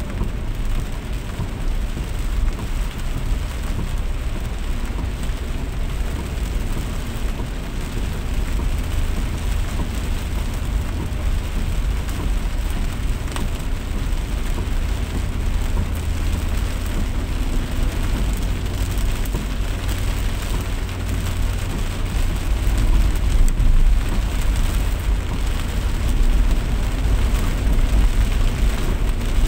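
Steady rain with a constant deep rumble underneath, growing a little louder about three-quarters of the way through.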